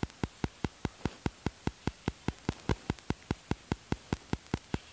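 Steady, rapid ticking: sharp, evenly spaced clicks at about five a second.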